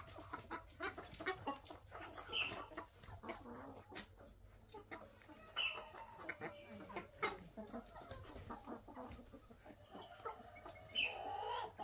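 Brown laying hens crammed in woven bamboo cages clucking as they are handled, with a few louder, sharper calls, about a third and two-thirds of the way in and near the end. Frequent light rustling and knocking of the cages and birds runs under the calls.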